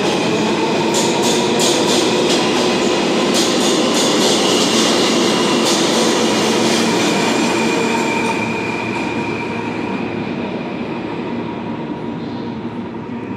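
New York City subway train running through the station, with a steady high squeal over the rumble and a run of rail-joint clicks in the first part. It grows quieter about eight seconds in as the train moves off.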